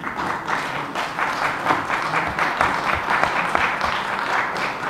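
A roomful of people applauding: a steady, dense patter of many hands clapping.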